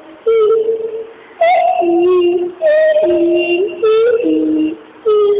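A high voice singing a slow melody of held notes, each lasting about half a second to a second, with short breaks between them.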